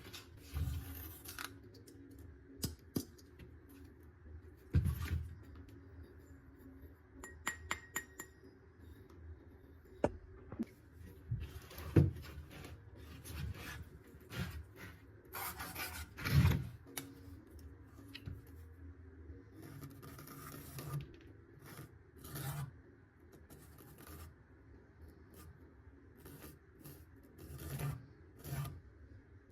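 Hand work on a piece of wood: irregular rubbing and scraping strokes, with scattered sharp knocks and clicks as the workpiece and tools are handled.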